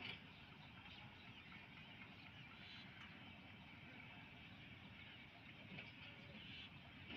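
Near silence: the faint, steady low rumble of a slowly moving passenger train.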